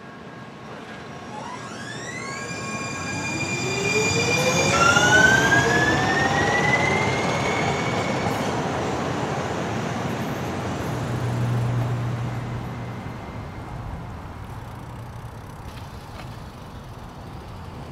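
Electric streetcar pulling away and accelerating past. Its motor whine climbs in pitch in steps over the first several seconds over the rumble of its wheels on the rails. The sound peaks about five seconds in and then fades as the car moves off.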